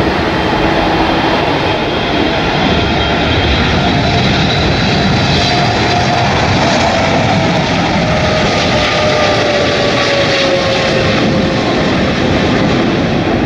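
Boeing 777 twinjet airliner passing low on its landing run, its engines making a loud, steady rush with whining tones that slowly fall in pitch as it goes by.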